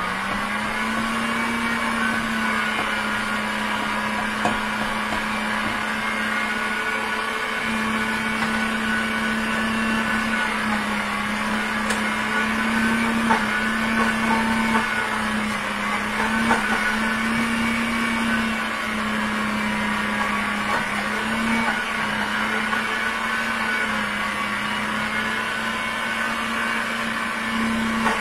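Countertop blender motor running steadily on a thick mixture, its hum wavering slightly as the load shifts, with a few light knocks.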